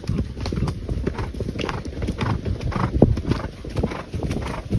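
Hoofbeats of a ridden horse cantering on a leaf-covered dirt trail, heard from the saddle as a quick, continuous run of dull thuds over a low rumble.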